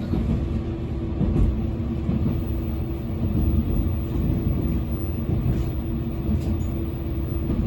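KiHa 120 diesel railcar running along the line: a steady diesel engine drone over a low rumble of wheels on the track, with a few faint clicks.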